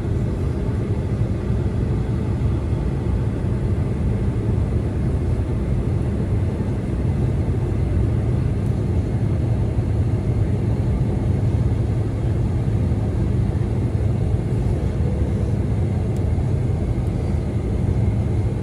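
Steady loud rumble of engines and rushing air inside the cabin of a Boeing 747-400 airliner, heavy in the low end.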